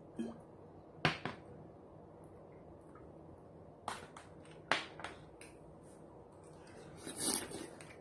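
Sharp clicks and knocks of tableware being handled: half a dozen separate taps over the first five seconds, then a short clatter near the end.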